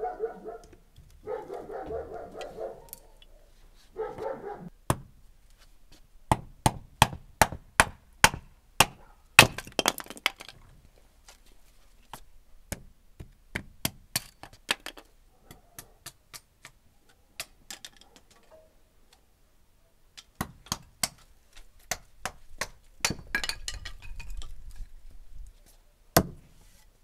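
Hand axe chopping small sticks of kindling on a wooden stump chopping block. It starts with a run of sharp chops about two a second, then comes scattered single strikes and one last loud knock near the end.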